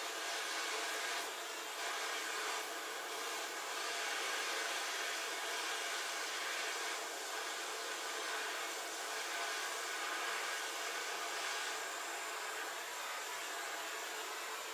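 Propane hand torch burning with a steady hiss as its flame heats a copper pipe fitting for soldering.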